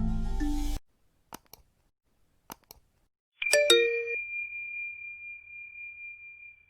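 Light mallet-percussion music cuts off under a second in, a few faint clicks follow, then about three and a half seconds in a bright chime sounds, one high tone ringing on and slowly fading.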